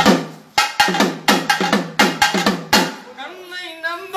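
Small hand drum struck with a curved stick in a quick, uneven rhythm, about ten strokes over three seconds. The drumming then stops and a man's voice begins singing one long, wavering note.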